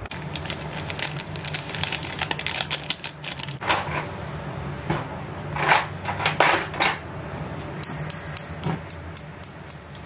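A plastic-foil powder sachet crinkling and crackling as it is handled and emptied: a dense run of sharp crackles at first, then louder rustling bursts around the middle as the crème pâtissière powder is shaken out into milk. A low steady hum runs underneath.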